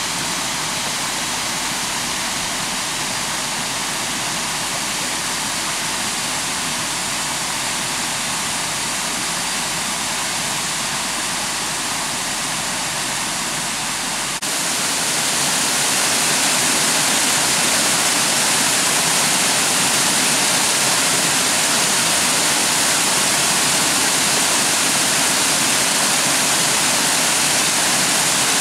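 Steady rush of a forest brook running over stones, with a waterfall ahead. About halfway through it cuts abruptly to a louder, brighter rush of water pouring over a low dam spillway onto rocks.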